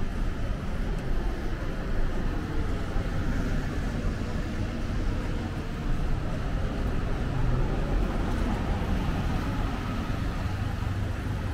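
City street ambience: steady rumble of road traffic going by.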